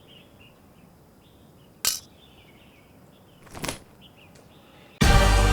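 Faint birds chirping in the background, broken by two sharp clicks about two seconds apart. Near the end, loud music with a beat starts abruptly.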